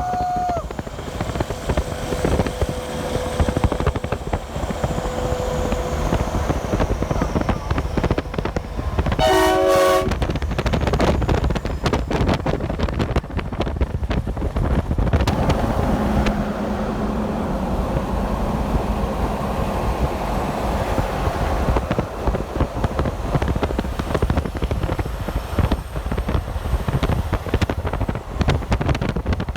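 Highway traffic passing steadily, heavy vehicles rumbling by, with a short blast of a multi-note train horn about nine seconds in.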